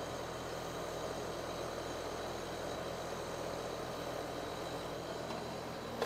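The outdoor unit of a 5-ton central air conditioner running steadily: even fan and airflow noise with a low steady hum underneath.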